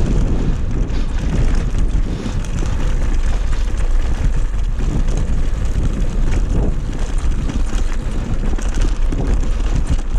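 Strong wind buffeting the microphone, a loud, steady, deep rumble.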